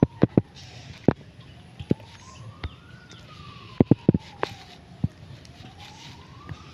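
Hands squeezing and mixing a thick batter paste in a steel bowl, with sharp clicks and taps against the bowl. Behind it, fainter, a siren wails, its pitch slowly rising and falling about every three seconds.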